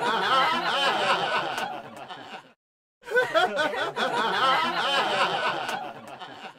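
Laughter sound effect, played twice in a row with a short dead-silent break about two and a half seconds in.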